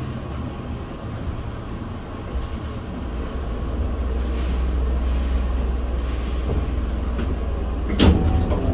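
Hankyu 6300 series electric train running, heard from inside the car: a steady low rumble of wheels and motors that grows louder after a few seconds, with a few sharp clacks near the end.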